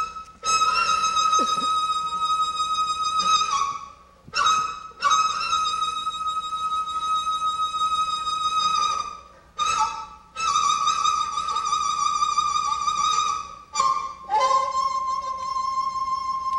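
Daegeum, the large Korean bamboo transverse flute, playing a slow solo: long held high notes with vibrato, in four phrases broken by short breaths. Each phrase opens with a quick grace note, and the last, slightly lower note is held.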